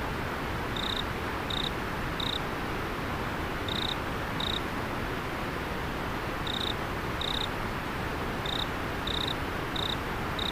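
River water flowing steadily over an insect chirping in short, clear, high notes, in runs of two to four with brief pauses between runs.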